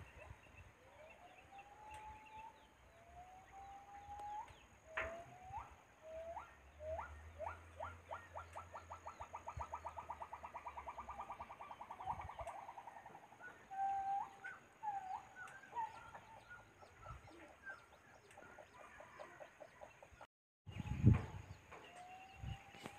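Faint calls of wild monkeys: a series of rising whoops that speeds up into a fast, even run of notes in the middle, then slows back into separate whoops. A low thump near the end.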